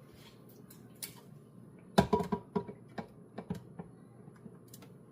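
A quick run of knocks and clatters from kitchen things being handled on a counter: one sharp knock about two seconds in, then several lighter taps and clicks over the next second and a half.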